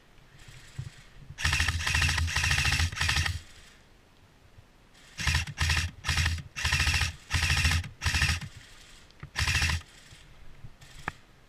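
Airsoft electric gun (AEG) firing on full auto: one long burst of about two seconds, then a string of five or so short bursts, and one last short burst near the end.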